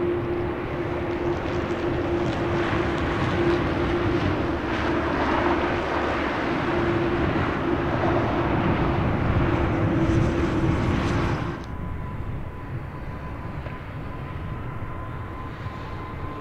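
Jet airliner engines running loud with a steady hum in the roar. About two-thirds of the way through the sound drops off abruptly to a quieter engine noise with a faint steady whine.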